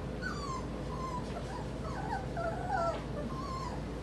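Four-week-old puppies whimpering and whining: a string of short, high cries that each fall in pitch, overlapping most thickly about two to three seconds in.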